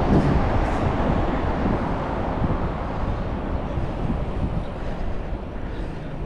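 Wind buffeting an action camera's microphone during a mountain-bike ride, mixed with road and traffic noise as a steady low rumble that eases off slowly.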